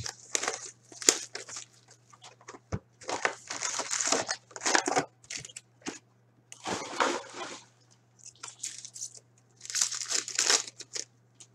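A cardboard card box being opened and foil trading-card packs torn open and handled: irregular bursts of crinkling and tearing with short pauses between them.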